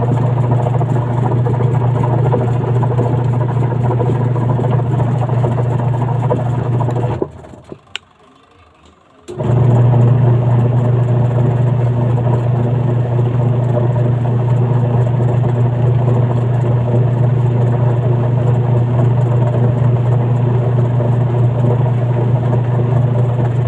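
Washing machine's electric wash motor running with a steady low hum, stopping abruptly about seven seconds in and starting up again about two seconds later.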